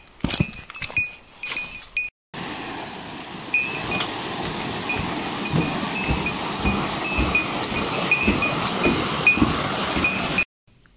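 A small hiker's bell jingles in time with walking footsteps. After a cut, a stream rushes steadily while the bell keeps ringing and footsteps thud on steel planking.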